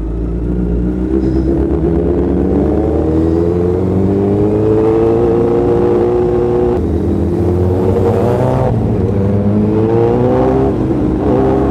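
Honda CBR1000RR's inline-four engine pulling away and accelerating through the gears. Its pitch climbs steadily, then drops at each of three quick upshifts.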